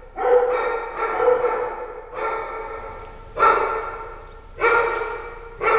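Kennelled dogs barking repeatedly, about one bark a second, each bark ringing on in the echo of a large metal-walled shed.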